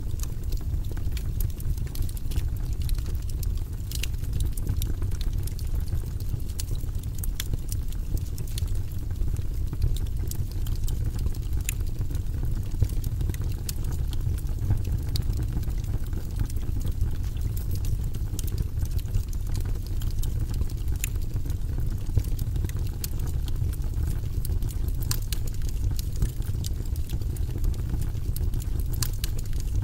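Wood fire burning in a fireplace: a steady low rumble from the flames with frequent small crackles and pops from the burning logs.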